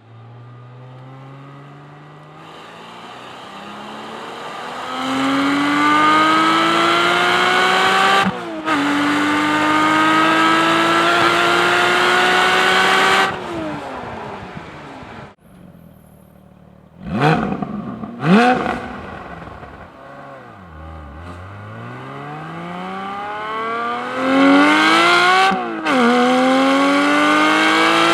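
Porsche 718 Cayman GT4's 4.0-litre flat-six under hard acceleration, heard from outside the car. The engine note climbs through the revs, drops sharply at an upshift about eight seconds in, climbs again, then falls away. After a short lull come two quick sharp rises and falls in pitch, then a second hard pull from low revs with another upshift near the end.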